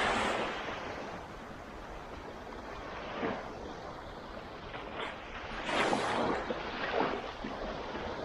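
Sea waves breaking and washing on a beach, swelling about three seconds in and again, loudest, around six and seven seconds in.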